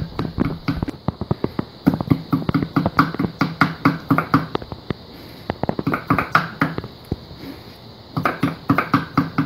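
Small hand hammer striking a steel chisel held against hot steel in quick runs of blows, about four a second with short pauses between runs, each blow ringing. The chisel is cutting vein lines into a forged steel leaf resting on a wooden block.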